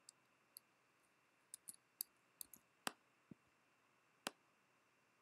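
Faint, scattered clicks of a computer mouse, about a dozen, irregularly spaced, with two louder clicks around the middle.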